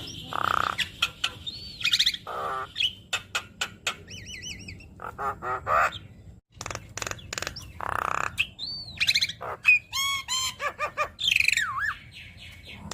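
Javan myna singing a varied, chattering song packed with mimicked phrases: looping whistles, harsh squawks and rapid trains of clicks. The song breaks off for a moment about halfway through.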